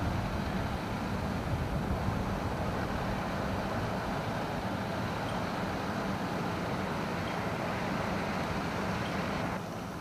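Tank truck's engine running steadily, mixed with a rushing outdoor noise. The higher part of the sound drops away shortly before the end.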